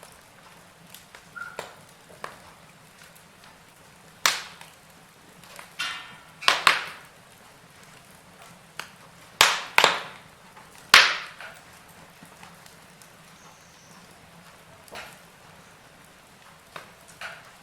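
Firewood burning in a fireplace, crackling: scattered sharp pops over a faint hiss, with a cluster of loud cracks in the middle and smaller ticks before and after.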